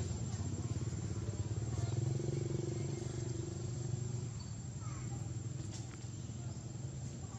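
An engine running with a steady low hum that fades away about halfway through.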